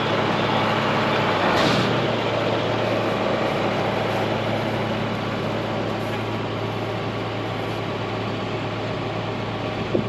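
John Deere tractor and pull-type Amadas peanut combine running steadily, a low even engine hum under broad machine noise, with a brief louder rush about a second and a half in. The picker is being run again to test it after it clogged.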